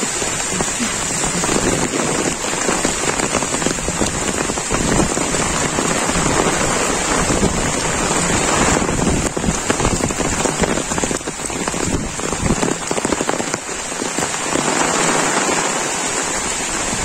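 Heavy monsoon rain falling steadily: a dense, even wash of countless close drop hits on leaves and pavement.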